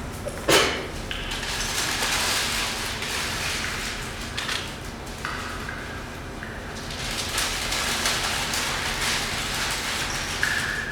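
Ancient ice, some 100,000 years old, crackling and popping as its trapped air escapes. There is one sharp, ringing crack about half a second in, over a continuous crackly hiss.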